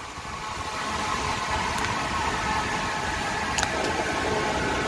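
Hurricane Isaias wind blowing as a steady rushing noise that builds over the first second.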